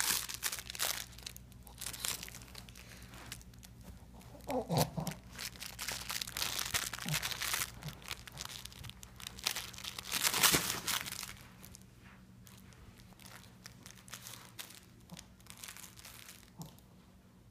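A Shih Tzu playing with paper towels and a crinkle toy: irregular crumpling, crinkling and tearing of paper, loudest around ten seconds in and quieter over the last few seconds. A brief pitched note slides up and down about five seconds in.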